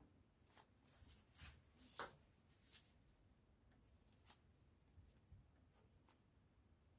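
Faint ticks and light scratches of a pencil marking dots on a sheet of pattern paper, about a dozen short taps at uneven intervals, the loudest about two seconds in.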